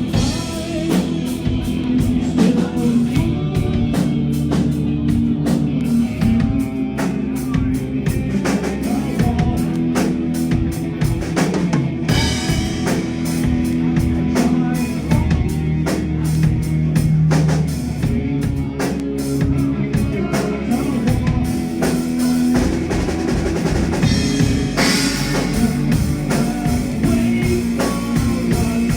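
Live rock band playing: drum kit, bass and guitars at full volume, with some singing.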